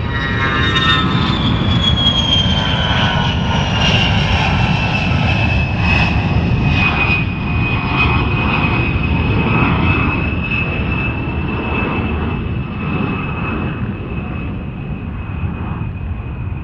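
Fixed-wing aircraft engine running over a low rumble. A high whine falls in pitch over the first several seconds, then holds steady.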